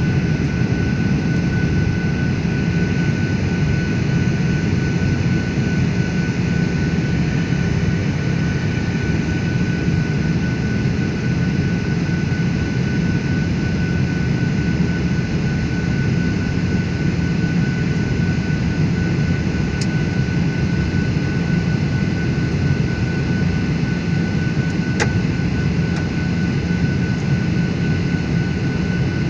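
Steady cabin noise of a jet airliner in flight, heard from a window seat over the wing: a deep, even rumble of engines and airflow with a thin steady whine above it. Two faint ticks come about two-thirds of the way through and again near the end.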